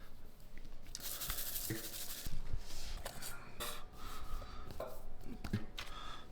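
Food preparation handling sounds: irregular rubbing, scraping and knocks, about one every half second, with short stretches of hiss.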